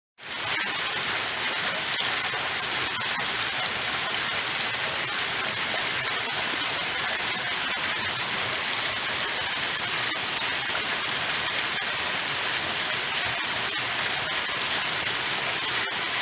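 Steady, dense rain falling, an even hiss of drops on surfaces with fine scattered ticks, cutting in suddenly at the start.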